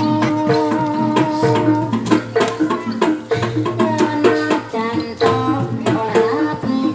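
Jaranan (kuda lumping) accompaniment music: Javanese gamelan-style ensemble with kendang hand drums beating a quick, steady rhythm under pitched percussion playing a repeating melody.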